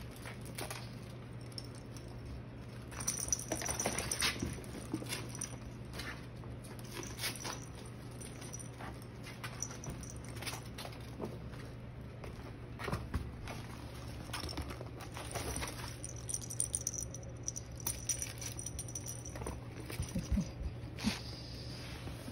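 A litter of Maine Coon kittens playing: scattered light scuffles, patters and small clicks of paws and claws on a blanket and playpen floor as they wrestle and scamper, over a steady low hum.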